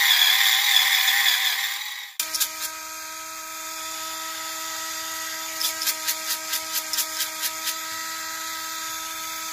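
Small electric motor of a battery-powered gravity pepper grinder running its ceramic burr, grinding coffee beans. It starts rough and loud with a wavering pitch, then after a cut about two seconds in settles into a steady whine. Midway a quick run of sharp cracks comes at about six a second.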